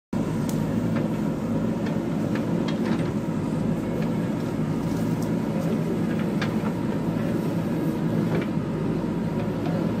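JCB 3DX backhoe loader's diesel engine running steadily under load while the backhoe bucket digs into the roadside soil, with scattered sharp clinks and knocks.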